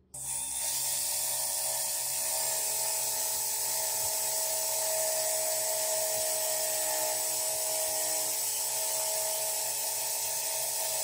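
Bench grinder running with a thin rusty rod, spun in a Bosch cordless drill, held against its wheel: a steady grinding hiss over the motors' whine as the rust is taken off the rod.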